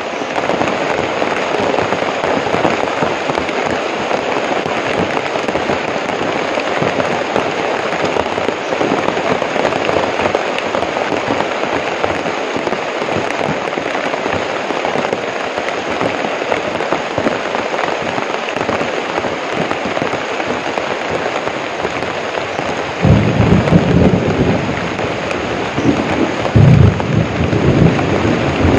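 Heavy rain falling steadily, an even hiss. Louder low rumbles come in about 23 seconds in and again near the end.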